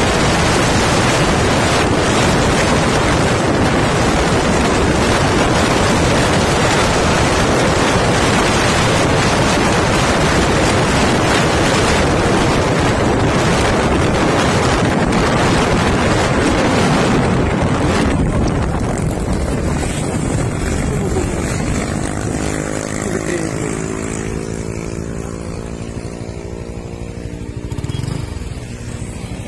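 Heavy wind buffeting the microphone of a moving vehicle, a steady rushing noise. About eighteen seconds in it eases off and an engine's running note comes through, shifting gently in pitch.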